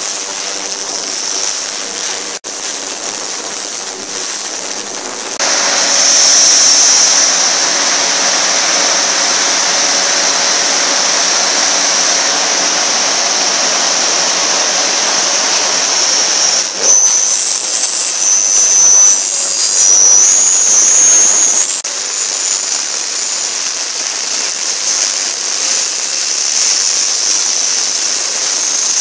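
Multi-tank ultrasonic cleaning machine running: a loud steady hiss with a high-pitched whine over it. The hiss swells fuller about five seconds in and drops back about seventeen seconds in, with a warbling high whine for a few seconds after.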